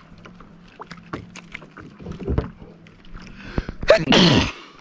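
Small knocks and taps of fishing gear and hands against a plastic sit-on-top kayak as a small fish is brought aboard. About four seconds in there is a louder rubbing scrape with a falling squeak.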